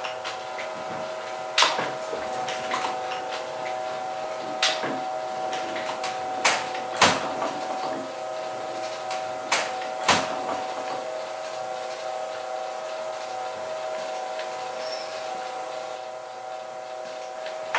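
Letterpress cylinder proof press being worked by hand, its carriage and inking rollers rolling over the bed with several sharp clanks and knocks, over a steady hum.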